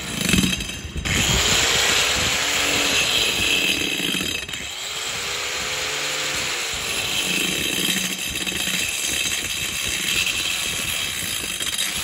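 Handheld angle grinder with a cutting disc running under load, cutting an oval hole into a plywood sheet: a steady high whine and grinding rasp, its pitch sagging and recovering twice as the disc bites.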